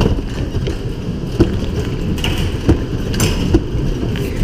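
Electric bumper car running across the rink floor with a steady low rumble, broken by a few sharp knocks.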